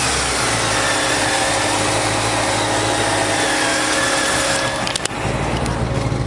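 Chevrolet 350 crate V8, fitted with headers and dual exhaust, idling steadily with a hissy mechanical wash. A couple of clicks come about five seconds in, and after them the sound turns deeper and rumblier.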